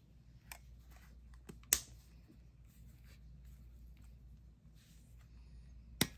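Plastic clicks from an Olympus mju-II compact film camera being handled: the film back door snaps shut with one sharp click a little under two seconds in. Fainter handling ticks follow, then another sharp click near the end as the battery compartment cover is opened.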